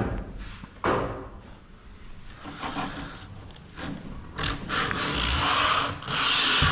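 Sandpaper rubbing on wood by hand in uneven strokes, becoming louder and steadier in the second half. Two sharp knocks near the start.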